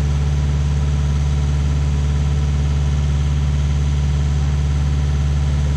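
Rayco RG50 stump grinder running steadily, its engine giving a loud, even low hum with no change in speed.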